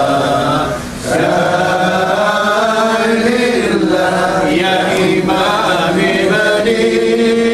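A group of men chanting a salawat (blessing on the Prophet) in Arabic together, slow long-held notes that glide up and down, with a short pause for breath about a second in.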